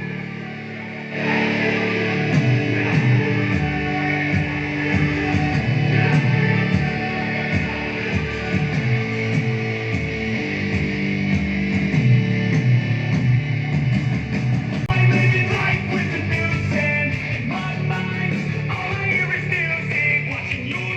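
Recorded music played back through a Peavey stage monitor speaker as a sound test, starting about a second in.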